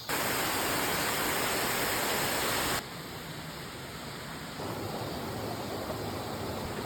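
Rushing valley stream water, a steady hiss of flowing water that drops abruptly to a quieter level about three seconds in and rises slightly again a little later.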